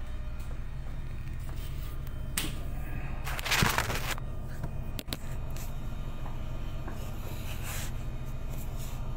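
Steady low hum of a ship's machinery, with a few clicks and rustles from a phone being handled and a brief loud rush of noise about three and a half seconds in.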